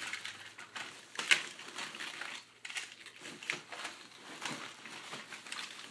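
Rummaging through a box of toy trains and packaging: crinkling and rustling with scattered small clicks and knocks, and one sharper clack about a second in.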